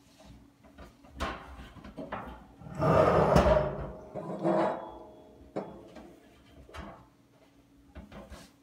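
Civan stainless steel honey extractor drum clanking and ringing as its red metal leg frame is handled and fitted. The loudest ringing clatter comes about three seconds in, a shorter one about a second later, and a few lighter clicks and taps are scattered around them.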